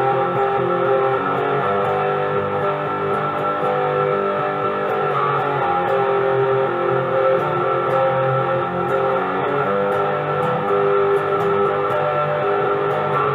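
Modded Monoprice Mini Cali electric guitar, pickups in full humbucker mode, played through heavy overdrive: a steady run of sustained distorted notes. Afterwards the player calls the sound "pretty mean".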